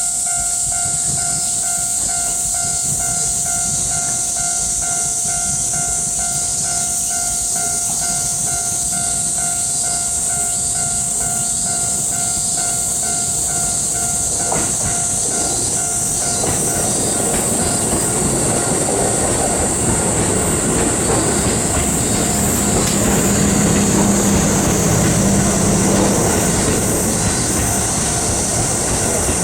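Japanese level-crossing alarm dinging rapidly and evenly; it stops about halfway through. A train then comes through the crossing, its wheels running on the rails and a motor hum growing louder toward the end, over a steady high hiss.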